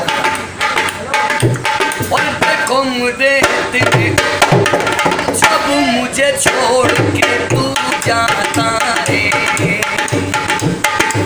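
Dholak, the two-headed barrel hand drum, played in a steady rhythm, with deep bass strokes and sharp slaps.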